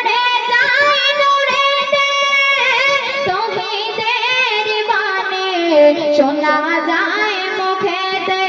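A young girl singing a Bangla gojol (Islamic devotional song) into a microphone, holding long notes with wavering ornaments, then sliding down through a falling phrase about halfway through.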